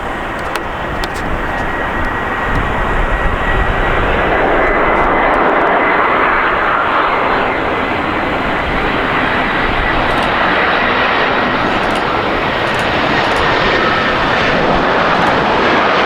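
Jet airliner close by, its engines making a steady noise that grows louder over the first few seconds and then holds, with a thin high whine running through it.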